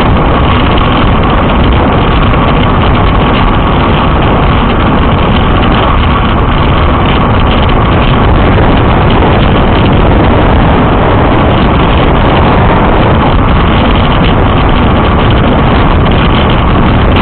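Wind rushing over the microphone of a camera on a road bike descending at speed: a loud, steady, unbroken rush of noise.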